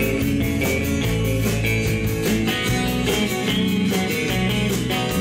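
Live country band playing, with guitars strumming over a steady drum beat.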